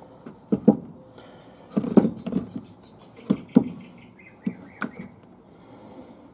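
Metal transmission parts knocking and clinking as they are handled and fitted, in a series of irregular strikes. The loudest come about two seconds in and again about three and a half seconds in, with a brief high ringing near the middle.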